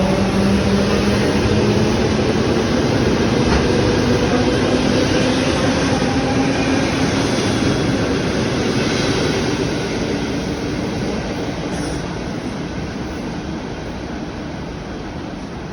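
ED4M electric multiple unit running on the track and moving away: a steady hum of a few low tones over loud wheel-on-rail noise, fading gradually.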